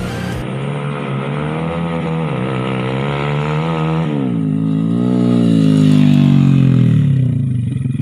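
Yamaha Jupiter Z's bored-out single-cylinder four-stroke engine with a 58 mm piston, revving as the bike is ridden up. The engine pitch climbs, drops sharply about four seconds in, climbs again louder, then falls away near the end as the bike slows.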